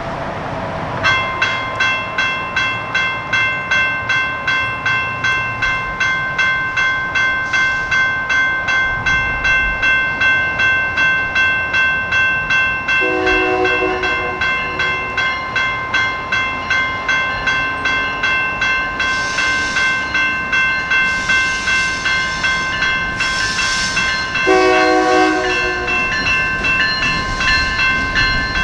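A General Signals Type 2 electronic crossing bell starts about a second in and rings steadily at about two strikes a second, signalling an approaching train. The approaching Union Pacific EMD SD59MX locomotive sounds its horn twice over it: one long blast about halfway through and another near the end.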